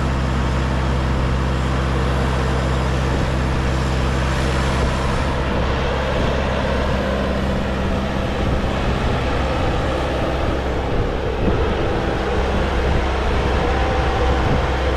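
Diesel engine of a compact tractor-loader-backhoe running steadily.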